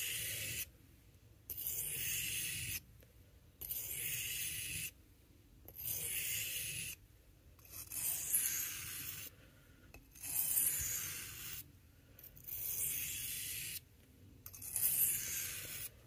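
Stainless steel Swiss Army knife blade stroked across a wet whetstone in about eight even scraping passes, each a hiss lasting just over a second with short pauses between. These are light passes to take the burr off the freshly sharpened edge.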